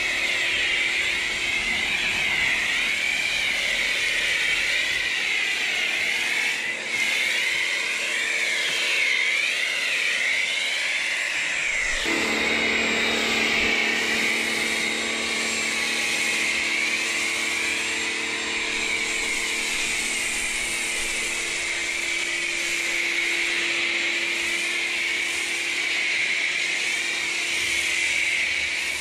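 Electric pressure washer running with a foam cannon attached: a steady motor and pump hum under the hiss of the foam spray. The hum changes about twelve seconds in.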